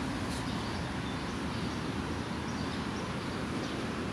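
Steady outdoor background noise, even and unchanging, with a brief paper rustle near the start as a magazine page is turned.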